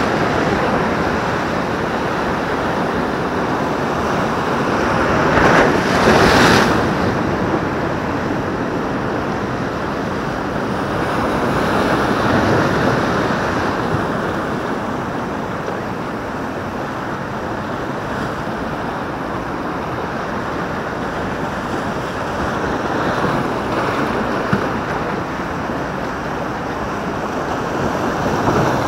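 Sea waves breaking and washing against the rocks of a breakwater: a continuous rush of surf, with a louder surge about six seconds in and smaller swells later.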